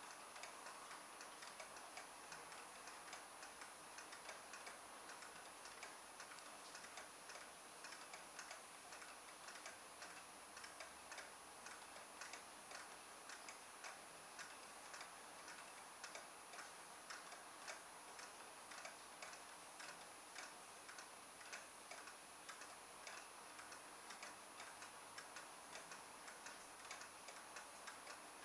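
Faint regular ticking, about two ticks a second, over near silence.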